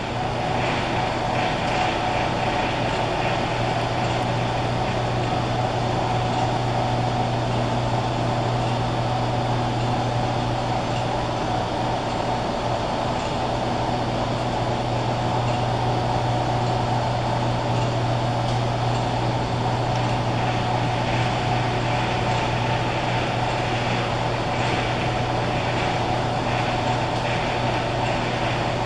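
Steady low hum and drone of electrical and mechanical equipment, unchanging in level.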